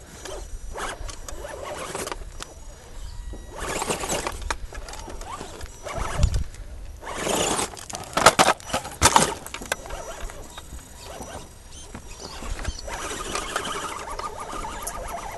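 Axial SCX10 RC rock crawler's electric motor and gearbox whining in short bursts of throttle as it crawls over rocks, with a few sharp knocks about eight to nine seconds in.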